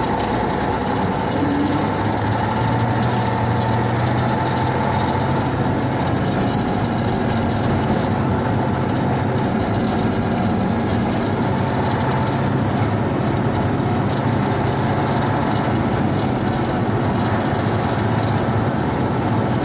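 A vehicle's engine running steadily with tyre and road noise as it drives over a rough dirt forest track, heard from inside the cabin.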